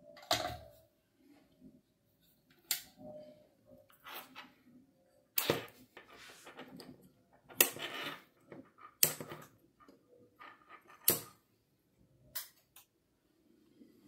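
Handling noises as a small circuit board is fitted back onto a plastic mini fridge housing: about eight sharp clicks and knocks at uneven intervals, with brief rustles between them.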